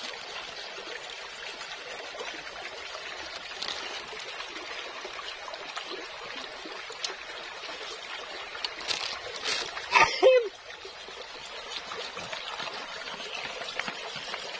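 Shallow stream trickling steadily over rocks, with one brief loud sound that has a bending pitch about two-thirds of the way through.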